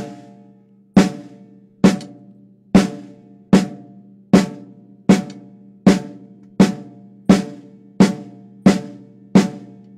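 Snare drum struck with slow single strokes, about thirteen evenly spaced hits a little under a second apart, each ringing out before the next. The stick is played as a rebound stroke, struck and left to bounce back off the head on its own.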